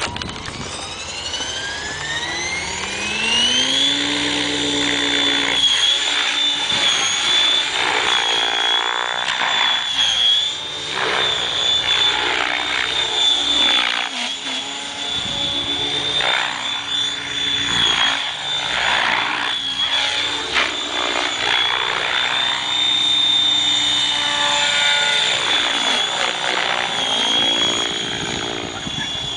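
KDS 700 V2 radio-controlled helicopter spooling up, its whine rising over the first four seconds, then flying with a steady high whine and rotor sound that swells and fades as it manoeuvres.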